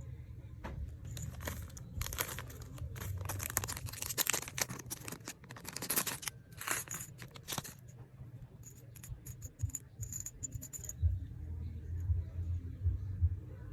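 Plastic packaging crinkling and tearing as an order is unwrapped, followed by a quick run of small clicks about nine to eleven seconds in, over a low steady hum.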